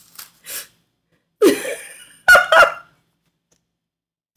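A woman laughing: a few soft breathy bursts, then a louder laugh about a second and a half in, ending in two sharp bursts.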